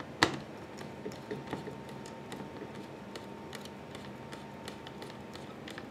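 Torx screwdriver working a screw out of a Mac mini's case: faint scattered metal clicks and ticks, with one sharper click just after the start.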